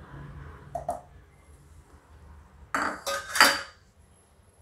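Kitchenware clattering: two loud clatters close together about three seconds in, with a few faint knocks before them.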